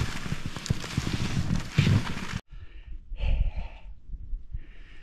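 Skis sliding and poles planting in snow, with irregular thumps under a steady rushing noise, cut off suddenly about two and a half seconds in. Then a man breathing hard, two heavy breaths, from hauling a loaded pulk uphill on skis.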